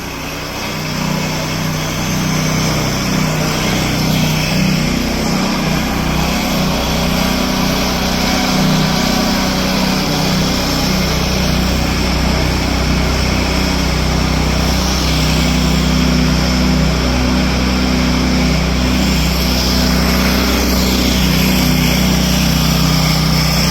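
Husqvarna Soff-Cut 150 early-entry concrete saw running steadily under load, its small engine and blade cutting a control joint in fresh concrete that is already fairly hard. The sound builds over the first couple of seconds, then holds steady.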